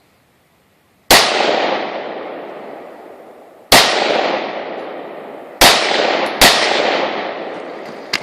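AR-15 rifle firing blank rounds: four single shots, the first about a second in, the next two and a half seconds later, then two about a second apart. Each shot leaves a long echo that dies away over a couple of seconds.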